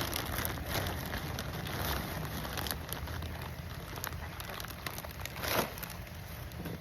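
Crackling and rustling of potting soil and plants being handled during repotting, with a louder knock about five and a half seconds in.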